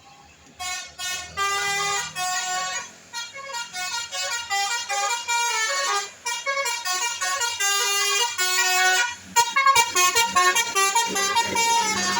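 Bus telolet horn, a multi-tone horn playing a loud, stepping melody of short and held notes, starting about half a second in and going on in quick phrases with brief breaks.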